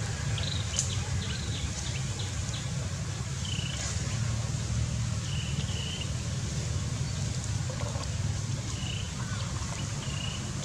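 Outdoor ambience with a steady low hum. Over it come short, high, arched animal calls, one every second or two.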